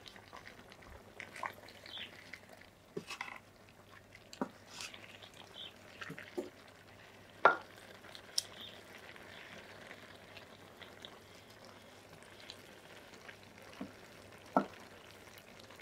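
Wooden paddle stirring a large metal pot of thick chicken and potato curry: irregular soft scrapes and knocks against the pot, the loudest knock about halfway through and another near the end.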